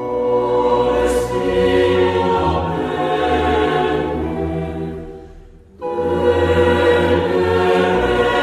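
Choral music: a choir singing long sustained chords, which die away about five seconds in before a new phrase enters about a second later.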